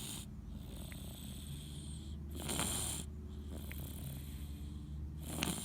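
Slow, even snoring, a breath about every three seconds, with one snore about two and a half seconds in and another near the end.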